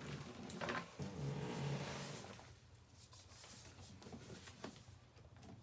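Handling noise from the boxed clipper being picked up and moved about: rubbing and rustling with a knock about a second in, fading to a few faint ticks.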